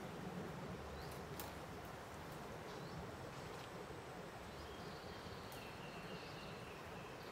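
Faint forest ambience: a steady low hiss with a few short, faint high chirps, and past the middle a thin high call held for about two seconds. A few faint clicks.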